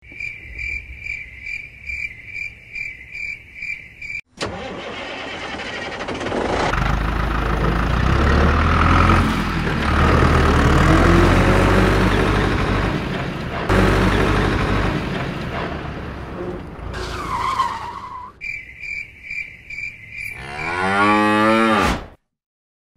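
Vehicle sound effects: a beeping alarm at about two beeps a second, then a vehicle engine running for about twelve seconds with cattle mooing over it, then more beeps and a long falling call near the end.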